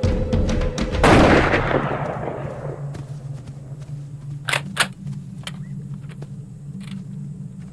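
Gunshots: one loud shot about a second in that rings out and dies away over about two seconds, then two sharp shots in quick succession about halfway through, with fainter cracks after.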